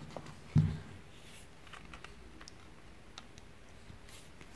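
Handling noise from a pair of pliers and a wooden dowel being picked up and gripped: one low thump about half a second in, then faint scattered clicks and taps. The rotary tool is not running.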